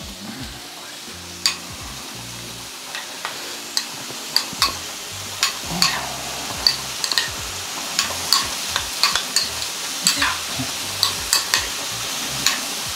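A metal spoon stirring and tossing a tomato salad in a ceramic bowl, with frequent light clinks against the bowl, more of them in the second half. Under it, a steady sizzle of potatoes frying in a pan.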